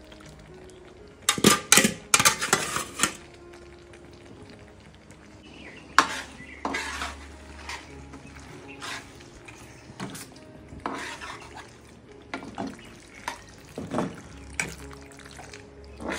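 Metal spoon and fork clinking and scraping against a frying pan as cooked pasta is stirred into a thick white sauce. A burst of loud clatter comes about a second and a half in, then lighter taps and scrapes about once a second.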